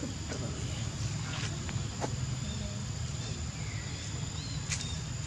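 Outdoor ambience: a steady high-pitched insect drone over a low rumble, with a few scattered light clicks.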